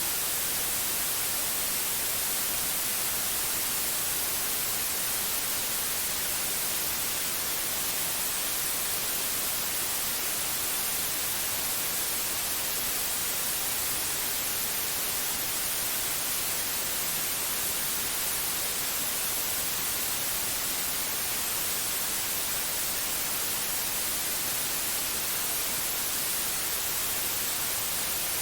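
Steady white noise: an even, unchanging hiss across the whole range, brightest in the highest frequencies.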